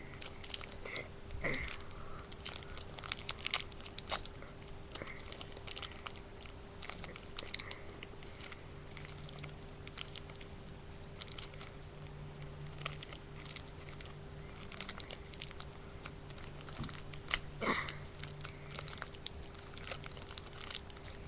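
Plastic LEGO parts bag being opened and crinkled, with small plastic bricks clicking and rattling as they are sorted and handled: scattered irregular clicks and rustles.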